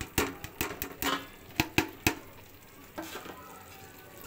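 Fried beef koftas being put into hot, oily onion-tomato masala in a pot: a run of sharp clicks and knocks in the first two seconds, then a steady faint sizzle.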